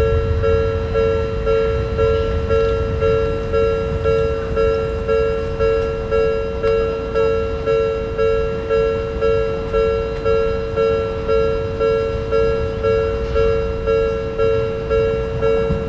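Japanese level-crossing warning bell ringing, a steady electronic ding repeated about three times every two seconds, over a low rumble.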